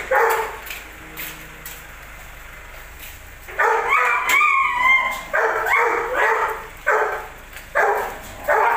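A dog barking: one bark, then a pause of about three seconds, then a longer drawn-out bark with a wavering pitch, followed by single barks about once a second.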